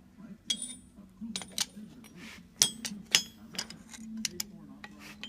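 A series of sharp metallic clinks and knocks, irregularly spaced, as a steel billet made from an upset railroad spike is handled and set into an anvil's hardie hole.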